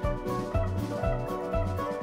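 Background music with a steady beat, about two beats a second, over a low bass line and sustained melodic notes.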